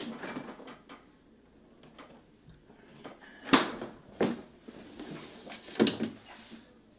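A pantry door being opened by hand: a few sharp clicks and knocks from the latch and door, the loudest about halfway through, with quieter handling noise between them.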